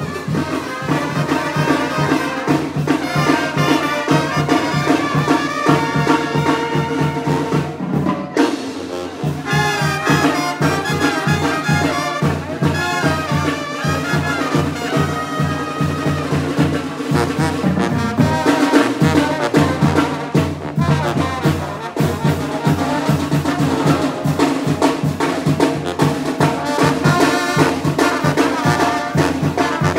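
Tamborazo band playing: trumpets and trombones carry the melody over a steady drum beat, with a short break about eight seconds in.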